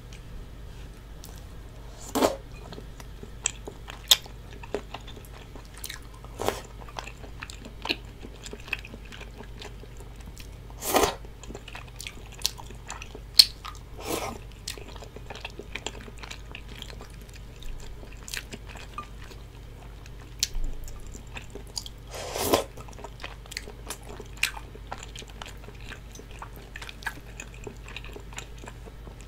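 Close-miked eating sounds: chewing soft, chewy tteokbokki rice cakes and fish cake in sauce, with wet mouth sounds and many short clicks. A few louder bites stand out, spaced several seconds apart.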